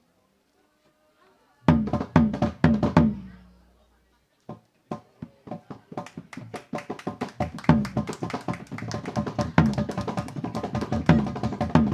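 Balinese gamelan ensemble playing the opening of a dance piece: a loud burst of accented unison strikes with drum about two seconds in that rings off, a short pause, then quick metallophone and drum strokes that build in loudness and density with heavy accents.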